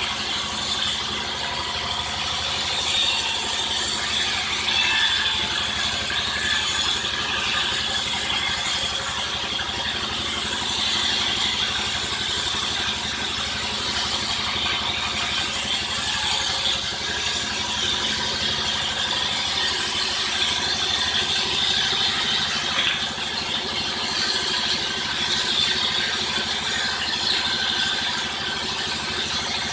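Sawmill machinery running steadily: a continuous mechanical noise with a high hiss, no clear starts or stops.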